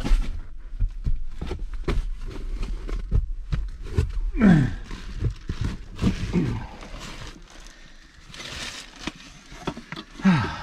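A man shifting his body into position in a cramped attic: repeated knocks and scuffs of movement and handling, with two short falling grunts of effort, one about four and a half seconds in and one near the end.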